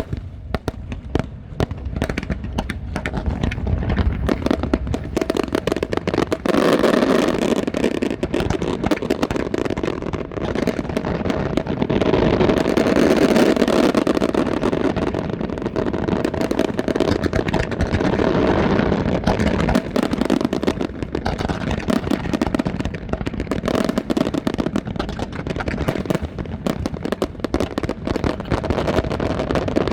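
Fireworks display: a rapid, unbroken barrage of bangs and crackles, growing denser and louder about five seconds in and staying dense.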